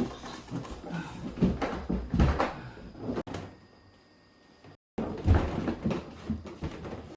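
Irregular knocks, clicks and low thumps of a folding canoe being handled and unfolded by hand. The handling dies away about three and a half seconds in, then starts again after a sudden break.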